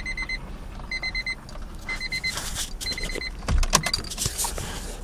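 Car warning chime beeping in short rapid groups about once a second, then about three and a half seconds in the starter cranks briefly and the Honda Logo's D13B engine catches and settles to a steady run.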